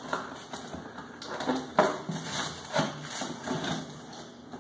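Cardboard box being opened by hand: tape pulled loose and the top flaps lifted, giving a string of sharp scrapes and rustles, the loudest a little under two seconds in.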